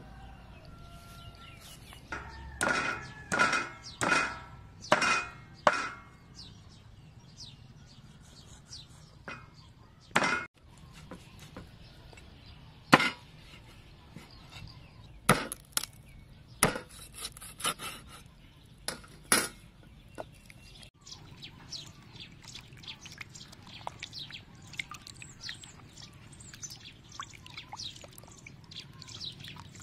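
A knife chopping through raw pork ribs on a wooden chopping board: sharp chops, several close together early on, then single strokes a few seconds apart. In the last third, light splashing and small drips as the rib pieces are rubbed clean by hand in a basin of water.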